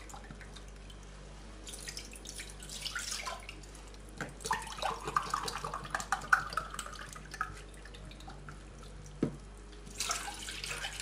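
Sour cherry juice poured from a carton into a glass cup, splashing and rising in pitch as the cup fills, with a short knock of the glass and more splashing near the end as the juice goes into a small steel saucepan.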